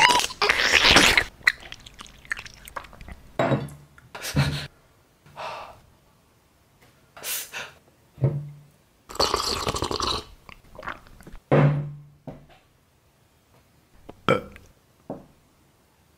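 Close-miked eating sounds of a person finishing a plate of spaghetti: two loud slurps, one at the start and one about nine seconds in, with chewing between, and a few short low throat sounds like small burps.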